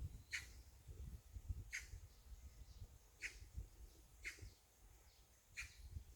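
A bird giving a short, sharp call five times, about once every second or so, over a faint low rumble.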